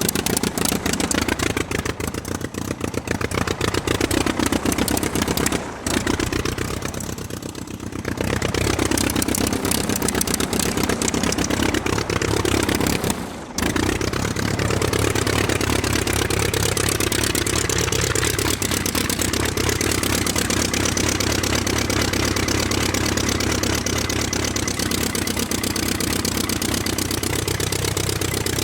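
Aircraft piston engine running, a steady drone with a rapid firing pulse and a slightly wavering pitch. It dips briefly about six seconds in, again around eight seconds and once more near the middle, then runs on steadily.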